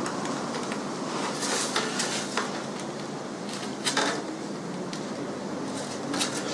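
Light scratching, rustling and small taps of a paper pattern and a Depron foam sheet being handled as a pin is pushed through to mark out a hatch cutout, over a faint steady hum.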